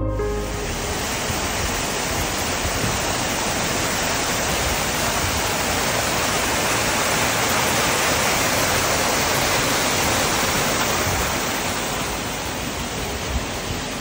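Water cascading over boulders in a close, loud, steady rush that eases off near the end.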